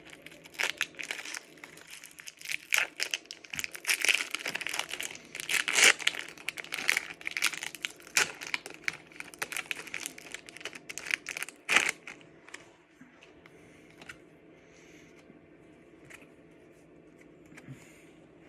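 Foil wrapper of a Pokémon Battle Styles booster pack crinkling and tearing as it is pulled open by hand, a pack that is really hard to open. The crackling is dense and irregular and stops about twelve seconds in, leaving only a few faint ticks.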